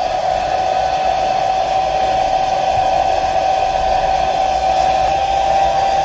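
Hair dryer running steadily at full speed, a motor whine over the rush of air, heating a phone's back glass to soften its adhesive.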